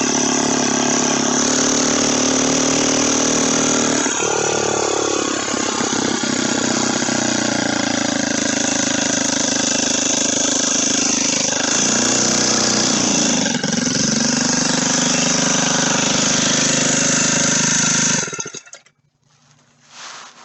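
Turbocharged motorized bicycle engine running under way, its pitch falling and rising as speed changes. It cuts off suddenly near the end.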